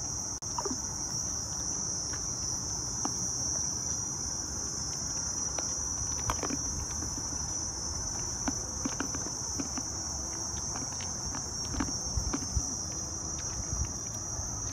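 Steady, high-pitched drone of forest insects, with scattered light clicks and taps.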